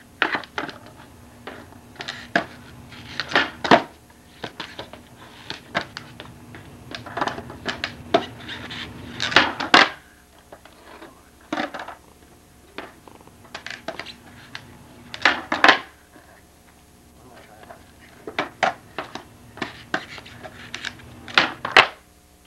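Skateboard on concrete: repeated sharp clacks and slaps as the deck and wheels hit the ground during flip-trick attempts, some in quick clusters. Between them, a low rumble of wheels rolling.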